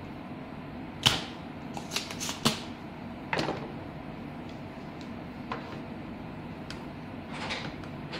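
Spring-loaded desoldering pump fired once with a sharp snap about a second in, sucking molten solder off a circuit-board joint. It is followed by several lighter clicks and taps as tools are handled, between about two and three and a half seconds in.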